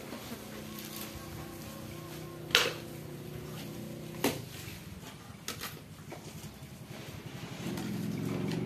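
A steady engine hum that grows louder near the end, as if a vehicle is coming closer. Sharp knocks cut through it: the loudest about two and a half seconds in, another about four seconds in, and a lighter pair a second later.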